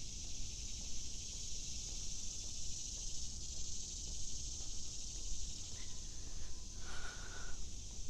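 Dense chorus of summer insects in woodland, a steady high-pitched buzz, over a low wavering rumble. A short faint whistle-like tone comes near the end.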